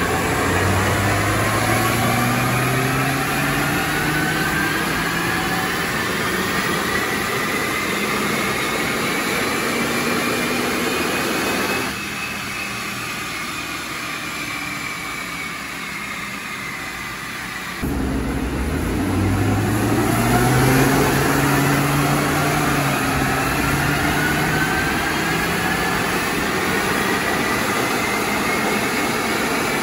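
2005 Volvo S60 T5's turbocharged inline-five run on a chassis dyno under load, its engine note and a whine climbing steadily in pitch. About twelve seconds in it drops off suddenly to a lower, quieter sound, then about six seconds later comes back and climbs again.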